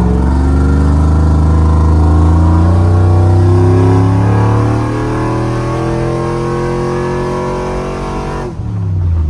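Cammed LS V8 in a Chevrolet Silverado pickup accelerating hard, its revs climbing steadily for about eight seconds under full throttle, then falling sharply near the end.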